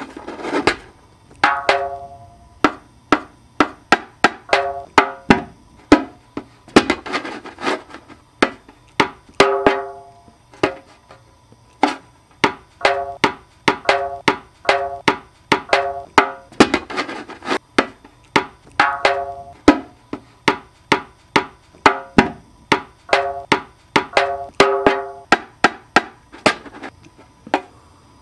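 A drum struck again and again in quick, uneven clusters of strokes. Most strokes ring briefly with a pitched tone, and some are sharper, harsher hits.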